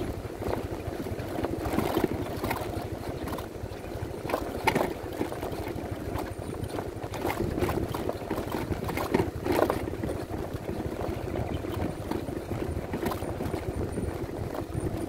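Yamaha NMax 155 scooter's single-cylinder engine running as it rides over a rough dirt road. Scattered knocks and rattles come from the bumps.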